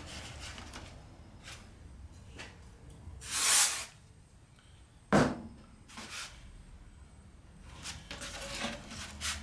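Aerosol can of cyanoacrylate super-glue activator giving one short spray, under a second long, about three seconds in, to cure the glue on a freshly glued joint. A sharp knock follows about a second and a half later, with a few faint clicks of handling.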